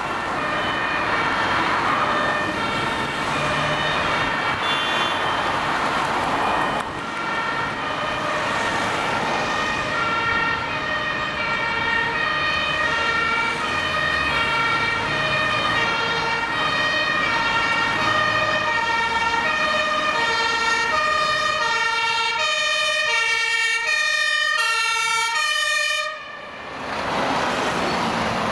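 Fire engine's two-tone siren, a high and a low tone alternating steadily, as the truck approaches. Near the end the siren cuts off suddenly and the fire engine drives past close by.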